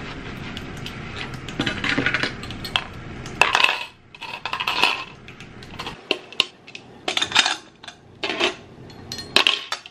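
Hand-washing dishes in a stainless steel sink: tap water running, with utensils, metal measuring spoons and plates clinking and clattering against the sink and a plastic colander. The water runs steadily for the first few seconds, then the clinks come in separate bursts.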